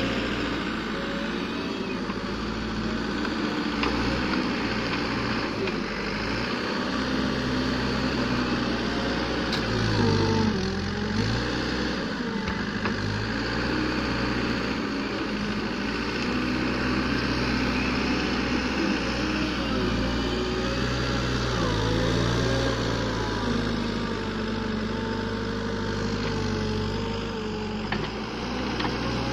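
Terex wheel loader's diesel engine running continuously as it works a silage grab bucket, its pitch rising and falling again and again as it revs up and down.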